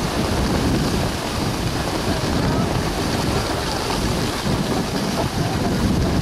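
Wind buffeting the microphone of a camera carried by a moving skier, with the hiss of skis sliding over packed snow.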